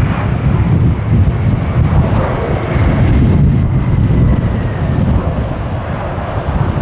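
Boeing 747-400's jet engines passing close by on final approach: a loud, rough low rumble with a faint high whine that drops slightly in pitch.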